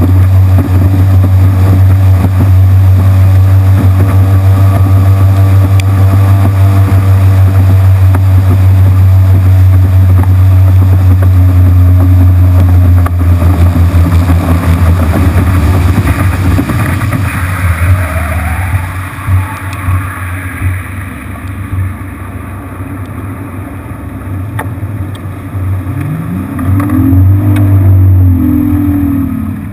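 Outboard motor on a bass boat running with a loud, steady low drone that breaks up and fades about halfway through. Near the end the engine revs up hard, its pitch sweeping up and then easing off as the boat accelerates onto plane, throwing a wake.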